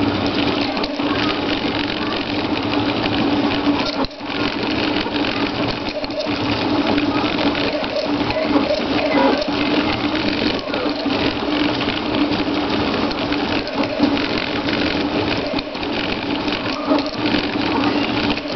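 RepRap Prusa 3D printer printing at 120 mm/s: its stepper motors buzz and the carriages rattle on printed PLA bushings as the print head darts about. There is a steady hum under fast, irregular changes, with a brief lull about four seconds in.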